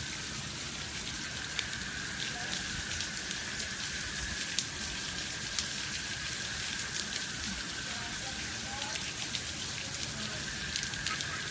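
Steady rain falling, with many scattered small raindrop ticks.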